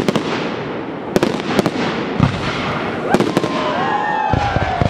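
Aerial fireworks display: a series of sharp shell bangs at uneven intervals over a continuous crackle from glittering crackling effects.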